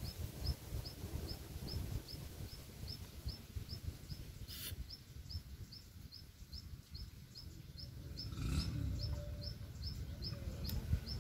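A small bird repeating one short high chirp at an even pace, about two to three times a second, over a low rumble.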